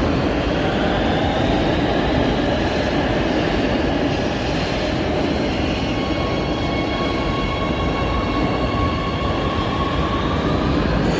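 A train running on the track: a steady, loud rumble with a few faint high tones that drift slightly in pitch.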